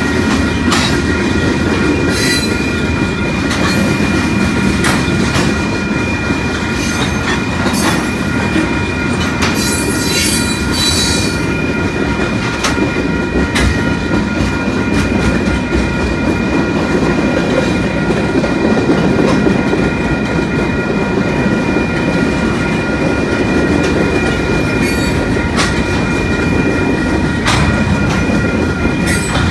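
Union Pacific freight train's cars rolling past close by: a steady rumble with wheel clicks and a continuous high wheel squeal, with sharper, higher squeals about ten seconds in.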